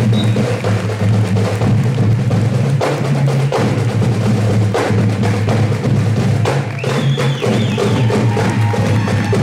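High school marching band playing in a school gymnasium: low held notes from the band over repeated drum and percussion strikes.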